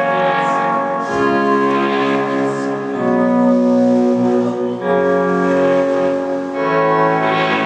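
Live rock band playing: distorted electric guitars hold sustained chords that change every second or two, with drums behind, and no vocals.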